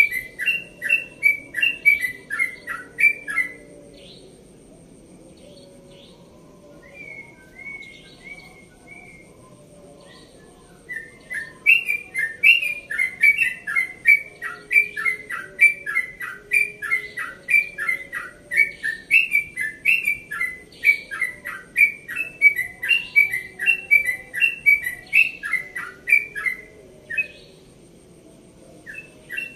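Caged trucukan (yellow-vented bulbul) singing its 'ropel' song: a rapid string of repeated downward-slurred whistled notes, about two a second. A short run opens, breaks off for several seconds with a few soft notes, then a long unbroken run of some fifteen seconds stops near the end and starts again.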